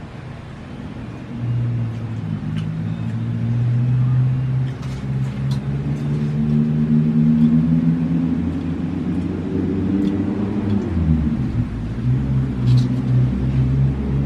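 An engine running close by, a low steady hum whose pitch shifts up and down and drops about eleven seconds in.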